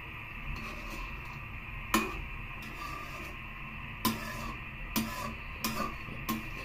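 Metal spoon knocking and scraping against an aluminum wok while stirring squid in coconut milk: about six sharp clinks, the loudest about two seconds in, over a steady low hiss.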